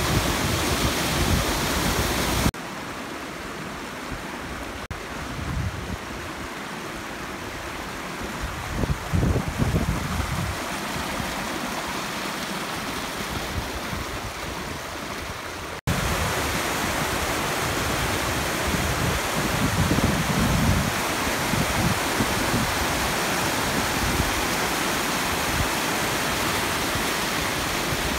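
Whitewater rushing over rock ledges in a river cascade, a steady rush of water. It drops quieter a couple of seconds in and comes back louder just past halfway.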